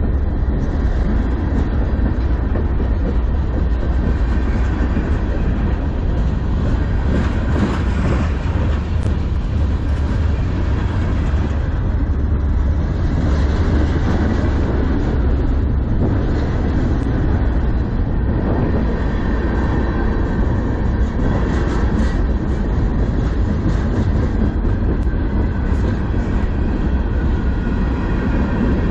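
Freight cars of a manifest train rolling past close by, including covered hoppers: a steady loud rumble of steel wheels on the rails, with some clickety-clack.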